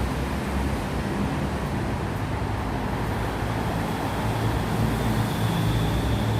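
Steady vehicle noise: a low engine rumble under continuous road noise.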